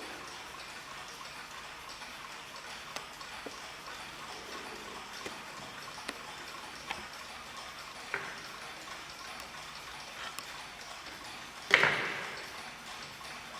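Several mechanical mantel clocks ticking, their ticks out of step with one another. Near the end comes a single much louder ringing strike that dies away over about a second.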